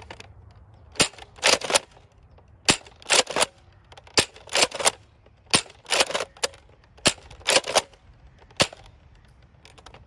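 Nerf N-Strike Deploy foam-dart blaster firing Streamline darts: about six sharp pops roughly a second and a half apart, each followed by a quick pair of plastic clacks as the blaster is primed again.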